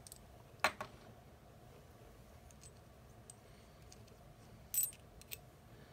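A few light clicks and taps as metal fidget spinners are handled, over a faint steady background.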